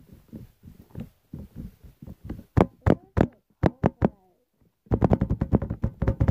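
Slime being squeezed and poked by hand, making irregular sharp clicks and pops. After a brief pause near the end, a faster, denser run of pops begins.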